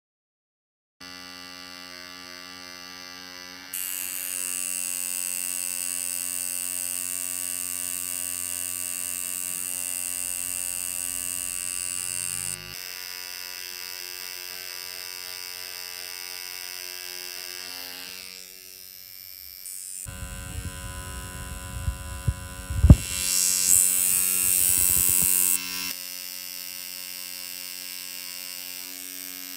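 Pen-style rotary tattoo machine running with a steady electric hum while shading skin. The hum steps louder a few seconds in and drops back about halfway through. In the last third a louder, noisier stretch comes in with one sharp knock, the loudest moment, before the steady hum returns.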